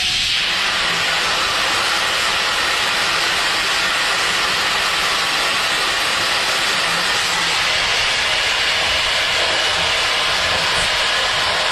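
Compressed-air cooling blast on a CNC mill during dry high-speed cutting: a loud, steady hiss of air with the cutting noise under it.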